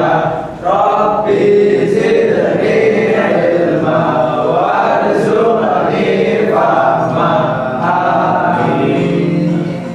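A class reciting an Islamic prayer (doa) aloud together in unison, a chanted group recitation, with a short pause for breath about half a second in.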